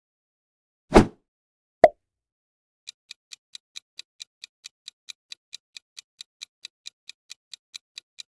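Quiz countdown sound effects: two short transition sounds about a second apart, the second sharper, then a clock-tick effect starting about three seconds in and ticking evenly at about four and a half ticks a second as the answer timer runs.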